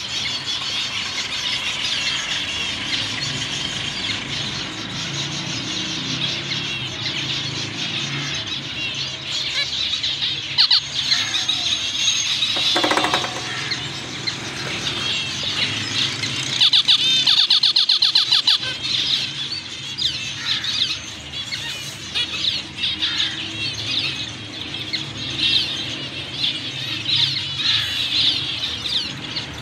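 Several zebra finches calling in a cage: a steady chatter of short, nasal chirps from the flock, with a louder, buzzy stretch a bit past halfway.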